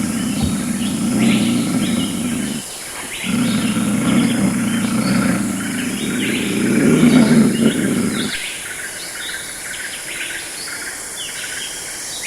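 Birds chirping and calling repeatedly over a steady high hiss, with a louder low rumbling sound in two long spells that breaks off briefly about three seconds in and stops about eight seconds in.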